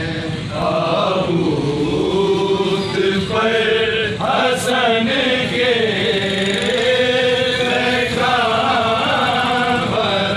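A male reciter chanting a soz, a Shia mourning lament in Urdu, in long drawn-out melodic phrases.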